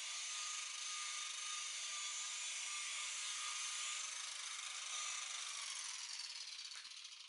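Electric buffer running steadily with a high whine, then switched off about six seconds in and spinning down, its pitch falling as it slows.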